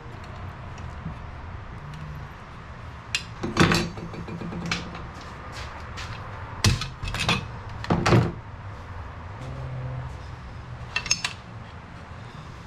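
Irregular knocks and clunks of tools and metal parts being handled during hands-on fabrication work. There are about seven separate impacts, some in quick pairs, the loudest near the middle, over a faint steady hum.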